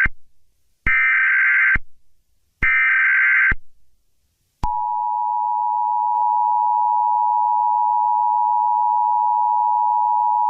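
Emergency Alert System SAME header: short bursts of buzzy high data tones, the end of one and then two more, each under a second. These are the coded signal that opens an emergency alert. About four and a half seconds in, the two-tone EAS attention signal starts with a click and holds as one steady tone, announcing that an alert message follows.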